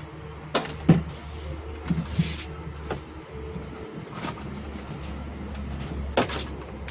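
Scattered knocks and clicks from handling a flat-screen TV and its cord on a workbench, the loudest about a second in, over a steady low hum.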